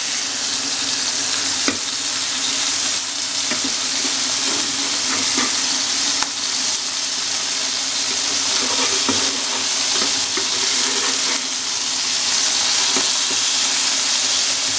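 Ground-meat burger patties sizzling steadily in hot oil in an electric pan, with a few light taps and scrapes as they are turned over with a spatula.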